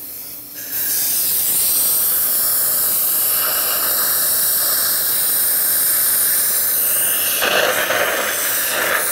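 Dental air-water syringe spraying and high-volume suction hissing steadily as phosphoric acid etchant is rinsed off prepared teeth, with a louder rush near the end.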